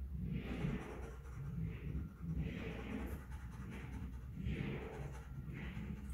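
A dog panting in slow, even breaths, about one a second, over a low steady hum.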